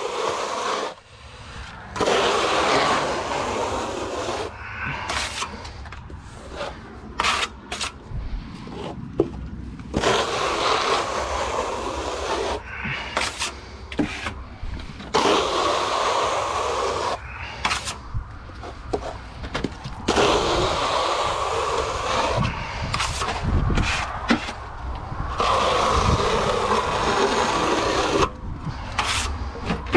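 Steel trowel scraping base coat render across external wall insulation boards in repeated long strokes, some lasting a few seconds, with short clicks and knocks between strokes.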